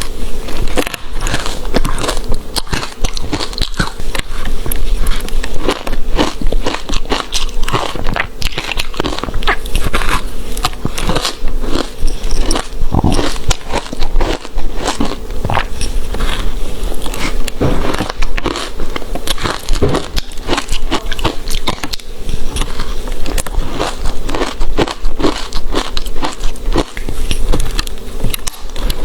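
Close-miked biting and chewing of ice: dense, irregular crisp crunches and crackles, one after another.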